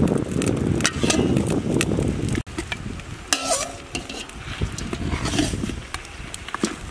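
A metal ladle stirring cow feet, bones and vegetables in a large stainless steel stock pot, with repeated knocks and scrapes and a short ringing clink of ladle on pot.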